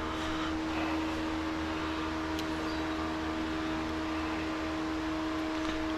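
A steady mechanical hum with one constant tone, even in level throughout, and a faint click about two and a half seconds in.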